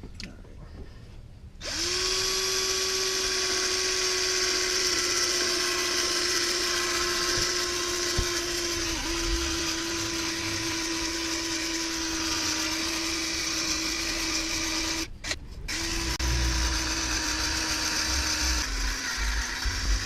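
Cordless drill spinning an 800-grit sanding disc against a plastic headlight lens: a steady motor whine that starts about two seconds in, stops briefly near three-quarters of the way through, then runs on and drops in pitch near the end.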